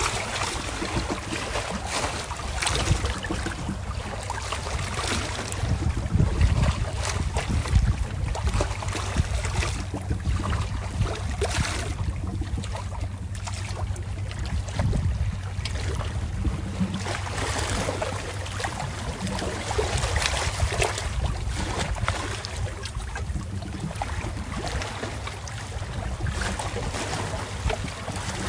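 Wind buffeting the microphone in uneven gusts over a steady low hum.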